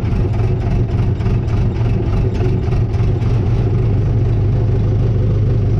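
Case 550G bulldozer's diesel engine running steadily, heard from the operator's seat, with a strong low hum.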